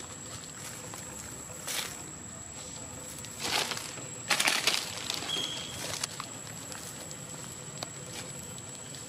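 Short rustling and scuffling in grass and dry leaves as a long-tailed macaque moves through it, three bursts with the loudest about four to five seconds in, over a steady faint high whine. A brief faint high chirp follows just after the loudest burst.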